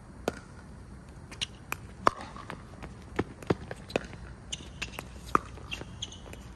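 Pickleball rally: sharp, irregular pops of paddles hitting the hollow plastic ball, with the ball bouncing on the hard court. About a dozen strikes come in quick succession.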